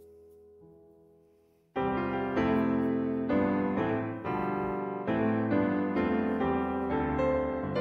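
Background piano music: a faint held sound fades away, then a piano passage starts abruptly a little under two seconds in and plays on with a steady run of notes.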